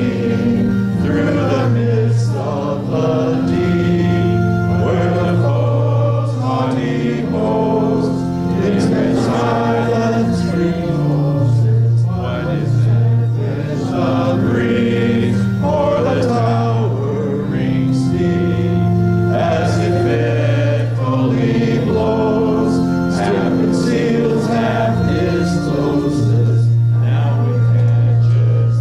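A congregation singing a hymn in unison with instrumental accompaniment, held bass notes changing every second or two under the voices.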